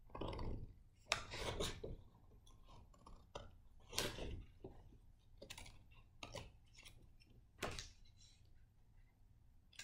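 Scissors cutting through a sheet of black paper: irregular crisp snips with paper rustling and handling, the loudest bursts about a second in, about four seconds in and near the end.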